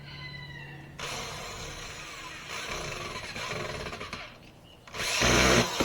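Power drill driving screws: the motor runs for about three seconds starting a second in, then a louder, shorter run near the end.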